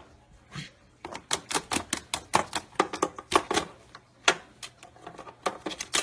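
White-bellied caique clicking and tapping on hard plastic with its beak and feet as it hops about a game console and game box and worries a controller cord and plug: a quick, irregular run of sharp clicks, densest in the first half, with a few scattered taps near the end.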